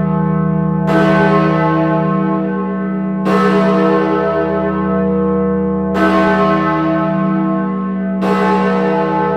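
Great George, the big bell of the Wills Memorial Building tower in Bristol, being swung by hand on its wheel and struck by its clapper four times, about every two and a half seconds. Each strike rings with many overtones that fade into a deep hum carrying on under the next blow.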